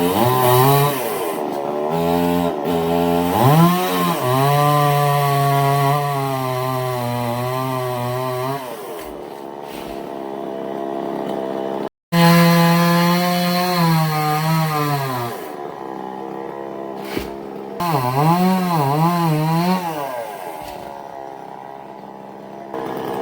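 Chainsaw cutting mango tree wood: the engine revs up and holds at high speed through the cut, wavers up and down in pitch, and eases back to lower revs between cuts. The sound cuts out abruptly for a moment about halfway.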